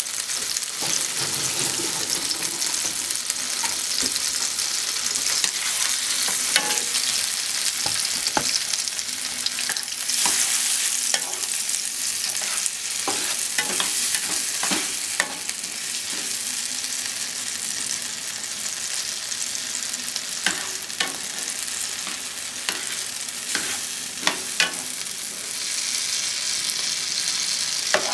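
Diced tomatoes sizzling in butter in a frying pan, a steady hiss. A spatula stirs them, with scattered scrapes and light knocks against the pan.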